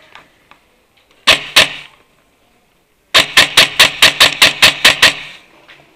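Airsoft rifle fired at close range: two shots a fraction of a second apart, then after a pause a quick string of about ten single shots at roughly five a second. The sharp cracks ring off bare concrete-block walls.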